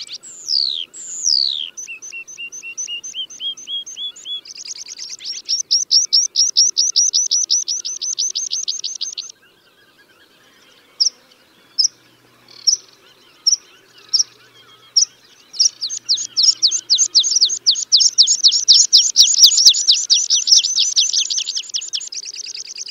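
Tree pipit song played as a hunting lure. Two steeply falling whistles open it, then a run of short rising notes and a long fast trill. After a brief pause come single sharp notes about a second apart, which run into another long, loud, fast trill.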